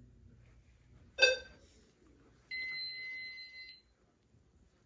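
Fire alarm annunciator panel being reset: a short, sharp chirp about a second in, then a steady electronic beep lasting a little over a second.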